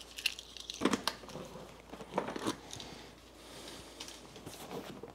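Handling noises of a motorcycle seat being released and lifted off: a few sharp clicks and knocks over rustling.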